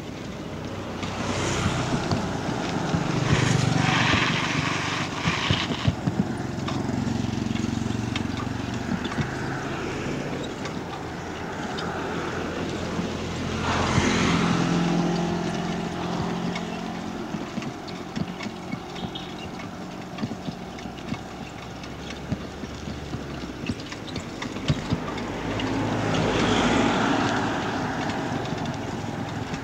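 Road traffic passing close by: cars and a van go past three times, each swelling up and fading away, over a steady rush of wind on the microphone.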